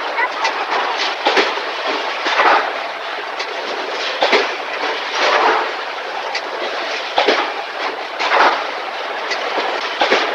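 Car factory floor: a steady machinery din with irregular metallic clatter and knocks, about one a second.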